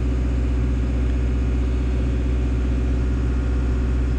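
Caterpillar 317 excavator's diesel engine running steadily, a constant low hum with no change in speed.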